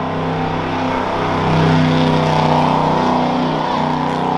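A pickup truck's engine running hard as it drives through a muddy rough-truck course, swelling louder about a second and a half in. Underneath is the steady running of a skid steer's engine close by.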